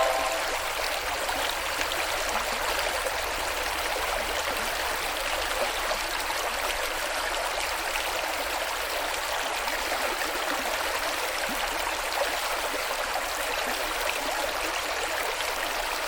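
Water running steadily with a faint gurgle, as in a small stream or a rice-paddy channel.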